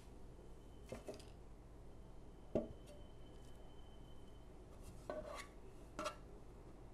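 A metal loaf pan set down on a silicone baking mat with a clunk and a faint ring that lasts about a second and a half, followed near the end by a couple of soft knocks as dough is placed into the pan.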